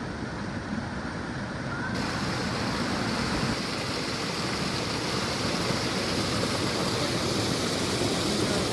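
Rushing water of a waterfall, a steady noise that steps up louder about two seconds in.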